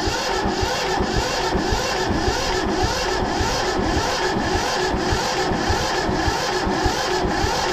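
Starter motor cranking the small diesel engine of a Yanmar 1500 tractor without it firing, with a steady, even pulsing about three times a second. The engine is being turned over with a fuel line cracked open to bleed air from the injection system, and it is building little fuel pressure.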